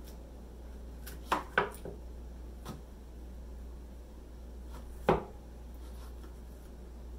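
Kitchen knives knocking on a cutting board and plate while ripe persimmons are cut up: a few short, sharp knocks, a quick group about one and a half seconds in and the loudest about five seconds in.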